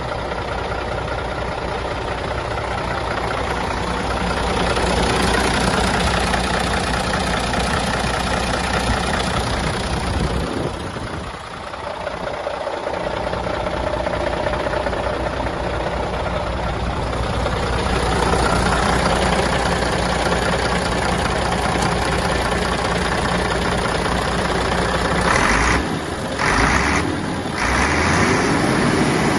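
Scania P94's nine-litre five-cylinder diesel engine idling steadily, heard close to the open engine bay. The sound dips once about a third of the way in and breaks off briefly twice near the end.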